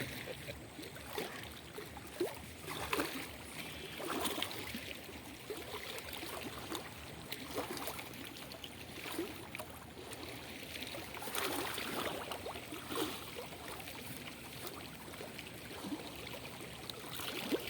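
River water splashing and trickling, with irregular small splashes and drips.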